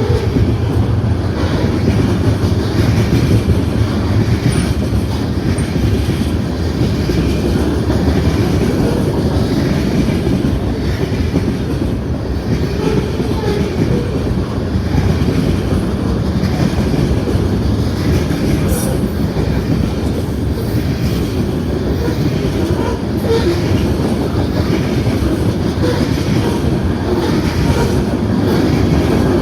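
Freight train cars rolling past at steady speed: a continuous rumble with the clatter of steel wheels over rail joints, and brief faint wheel squeal here and there.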